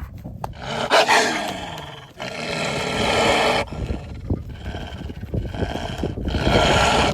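Animal snarling and roaring, as in a fight, with a loud falling cry about a second in.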